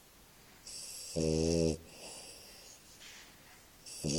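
Bulldog snoring: two snores about three seconds apart, each a short hissing breath that turns into a low buzzing snore. The second one is still going at the end.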